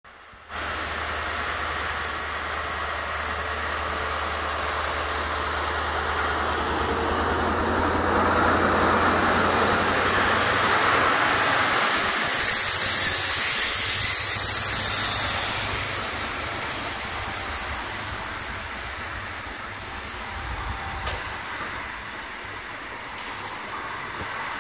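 Class 43 HST power car's MTU V16 diesel engine pulling away under power. Its steady low note opens up about half a second in and is loudest as the power car passes, about a dozen seconds in. The Mark 3 coaches then roll past on the rails, quieter, with a few wheel clicks.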